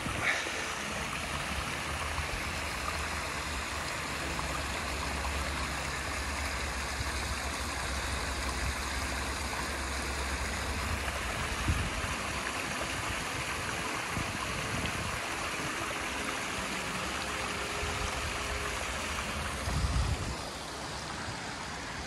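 Steady rushing of running water from a stream, with a low rumble through the first half and a couple of soft bumps later on.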